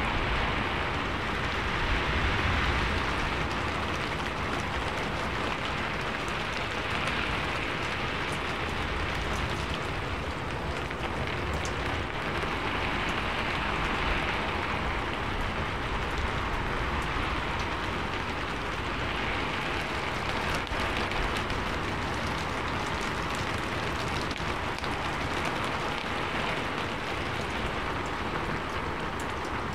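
Steady rain falling: a continuous hiss of drops that swells and eases a little every few seconds.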